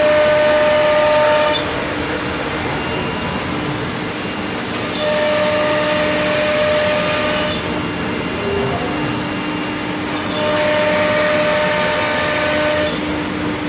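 2007 C.R. Onsrud 381G18CD CNC router running, with a steady whine throughout. Louder, higher-pitched stretches about two and a half seconds long come roughly every five seconds.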